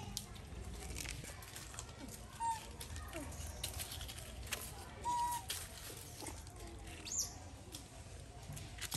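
Outdoor ambience of light rustling and scattered clicks, with a few short animal calls: two brief mid-pitched calls and one high falling squeak near the end.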